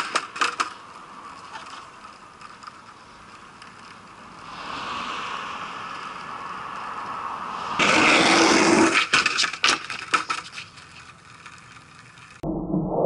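Skateboard wheels rolling on concrete, followed by the board clattering in a quick run of sharp knocks. This happens at the start and again about eight seconds in. In between, a softer rushing sound swells and fades.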